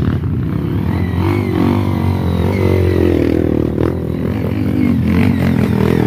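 Trail motorcycle engine revving hard under load on a steep rocky climb, the pitch rising and falling as the throttle is worked, with a few knocks from the bike over the rocks.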